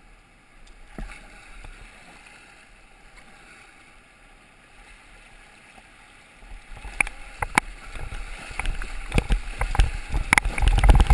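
River water running over rocks around a plastic sit-on-top kayak: a quiet, even rush at first, then, about six and a half seconds in, the kayak enters the rapid and the sound turns much louder, with splashing, paddle strokes and knocks of water against the hull.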